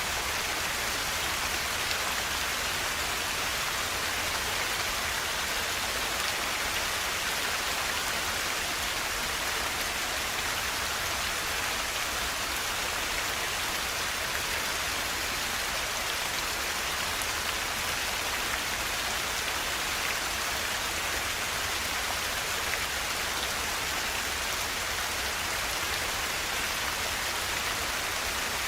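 Forest river rushing: a steady, even hiss of flowing water that does not change.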